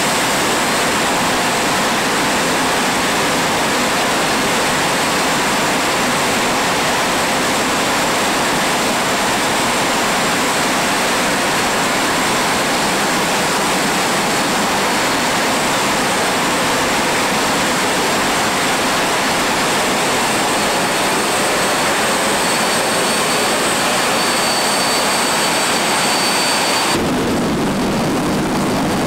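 Jet engine of a jet-powered funny car running steadily: a loud, even roar with a thin high whine on top. About 27 seconds in, the sound switches abruptly to a deeper, heavier roar.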